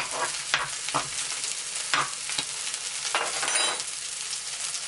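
Almond-flour-crusted haddock sizzling in hot coconut oil in a skillet, while a utensil scrapes and taps against the pan several times.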